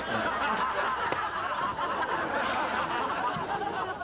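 Audience laughter: many people laughing together at a sketch's punchline.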